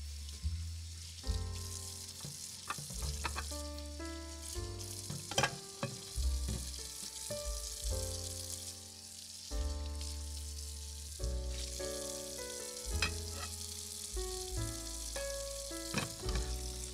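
Hot cooking oil sizzling with a steady high hiss, under background music with a bass line and melody notes. A few small sharp clicks stand out.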